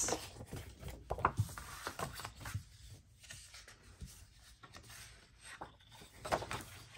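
Sheets of patterned scrapbook paper being handled and turned over, with soft rustling and sliding of paper on a tabletop. The rustles come and go, a little louder about a second in and again near the end.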